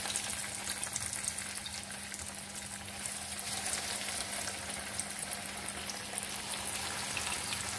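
Breadcrumb-coated potato patties (aloo tikki) frying in hot oil in a pan: a steady sizzle with fine crackles throughout.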